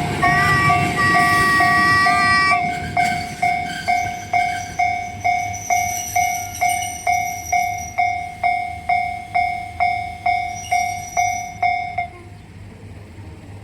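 Japanese railway level crossing alarm ringing its repeated 'kan-kan' tone, about two strikes a second. For the first two and a half seconds it sounds over a train running past. The alarm then rings on alone and stops about twelve seconds in.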